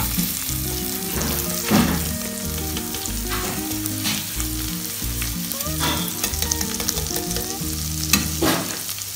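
Garlic sizzling in melted butter in a frying pan, with a slotted spatula scraping and stirring against the pan in several short strokes.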